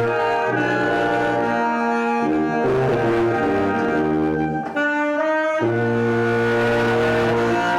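A small brass ensemble plays a slow hymn arrangement in held, sustained chords that change every second or two.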